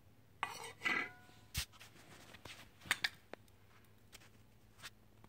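Small objects being handled on a hard surface: a short scrape, then a knock with a brief ringing tone about a second in, followed by scattered light knocks and clicks, a sharp double click the loudest near the middle.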